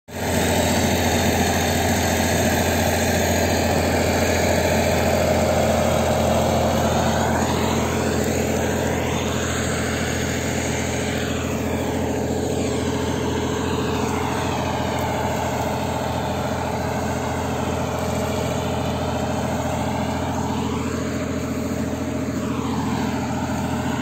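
Front-loader tractor's engine running steadily.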